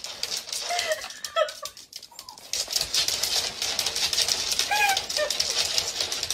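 A small dog's claws rapidly clicking and scrabbling on a hardwood floor as it strains to pull away, with a few short high-pitched calls that rise and fall.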